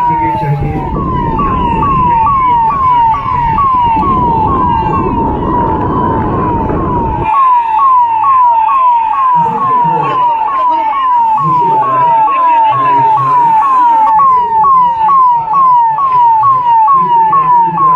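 Electronic siren sounding in a fast repeating pattern, each cycle a quick drop in pitch, about two and a half cycles a second. A loud low rumble runs under it for the first seven seconds and then cuts off suddenly.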